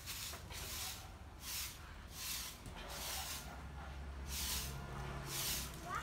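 Long-handled broom sweeping leaves across tiled paving: a brushing swish with each stroke, about one stroke a second.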